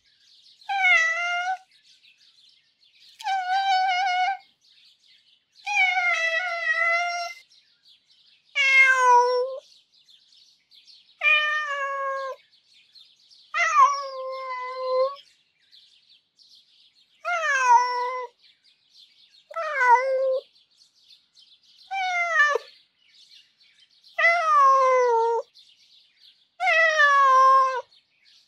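Domestic cat crying: about six drawn-out, sad, longing meows, then shorter mewls every two to three seconds, most of them sliding down in pitch at the end. A faint hiss sits between the calls.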